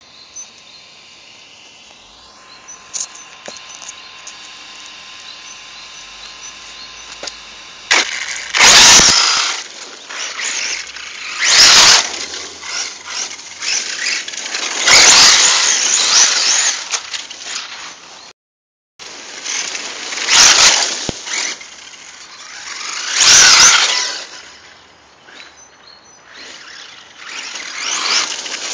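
HPI Savage XS electric RC monster truck, running on a 3S LiPo, speeding past about five times. Each pass is a loud, brief swell of motor whine and tyre noise on gravel that rises and falls away.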